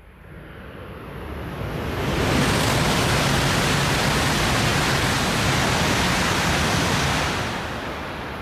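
E5-series Shinkansen bullet train passing through the station at high speed: a rushing noise of air and wheels on rail swells over the first two seconds, holds loud and steady for about five seconds with a low hum underneath, then starts to fade as the train recedes.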